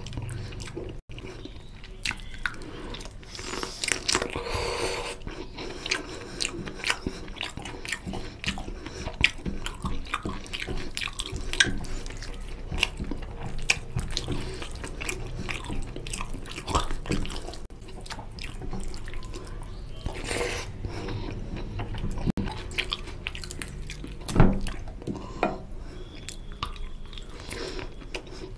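Close-up wet eating sounds: fingers squishing rice into oily mutton curry gravy on a plate, and open chewing of rice and mutton. The sound is a steady run of short wet clicks and smacks.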